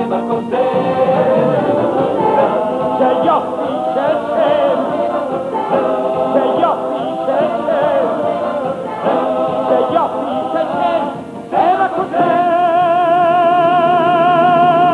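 A cast ensemble sings an upbeat musical-theatre song over a band. About twelve seconds in, the music settles on one long held note with vibrato.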